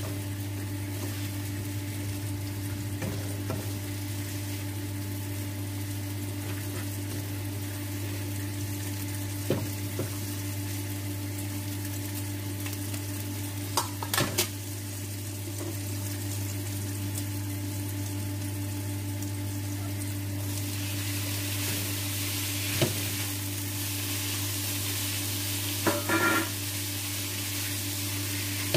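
Food sizzling in a non-stick frying pan over a gas flame as it is stirred with a spatula, with a few sharp knocks of the spatula against the pan. The sizzle grows louder about two-thirds of the way in. A steady low hum runs underneath.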